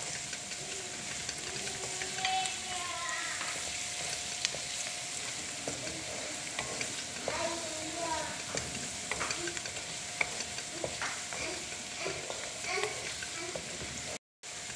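Onions and curry leaves sizzling in hot oil in a metal wok, stirred with a wooden spatula that scrapes and clicks against the pan. The sound drops out for a moment near the end.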